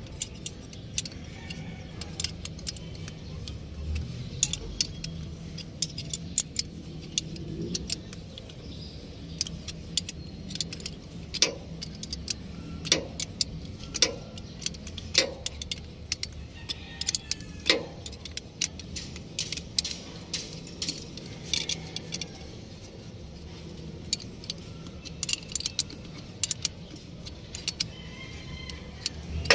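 Metal hand tools clicking and clinking irregularly on the hose clamp while a backhoe's turbocharger hose is being refitted, with several louder clinks in the middle and a steady low hum underneath.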